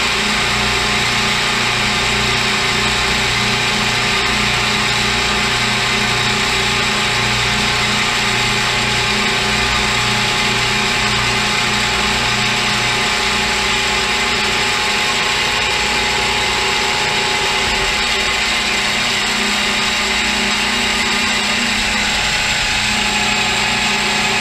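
CNC milling machine spindle running with an end mill cutting the block on an adaptive toolpath. The sound is a steady, loud machining noise with a pulsing low throb that drops out about halfway through, and it cuts off at the end.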